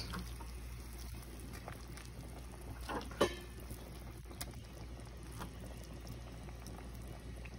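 Pot of sinigang broth bubbling faintly on the stove, a steady low hiss over a hum, with a few soft knocks and small splashes as fish fillets go into the pot, the clearest about three seconds in.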